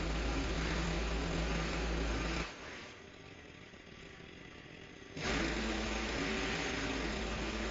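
Engine of a pole hedge trimmer running at full throttle. It drops suddenly to a much quieter idle about two and a half seconds in, then comes back up to full throttle a few seconds later.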